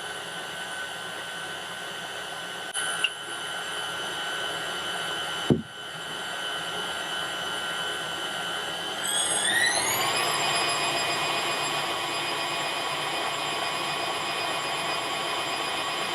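KitchenAid tilt-head stand mixer's motor whining steadily as the dough hook kneads pizza dough. About nine seconds in, the whine rises in pitch as the speed is turned up, then holds at the higher speed; a single short knock comes about halfway through.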